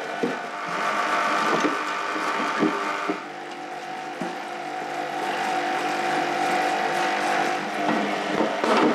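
A stiff brush scrubbing a cast-aluminium Harley Sportster fork yoke in a parts washer, knocking against the casting now and then, over the steady hum of the washer's pump feeding its solvent nozzle.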